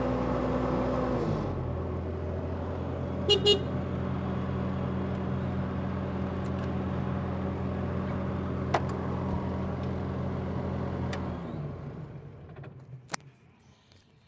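Bobcat T750 skid steer's diesel engine running steadily, dropping to a lower speed about a second in, with two short beeps a few seconds in. Near the end the engine winds down and shuts off.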